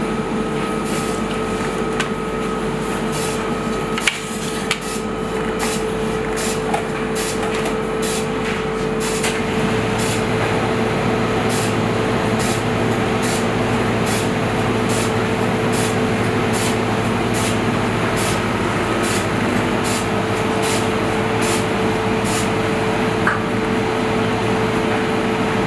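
Steady hum of kitchen machinery, with a light ticking that repeats about one and a half times a second over it. The deep part of the hum grows stronger about ten seconds in.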